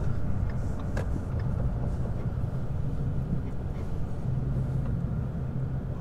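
Ford S550 Mustang running on the move, heard inside the cabin: a steady low engine and road rumble with a faint hum, and a single light click about a second in.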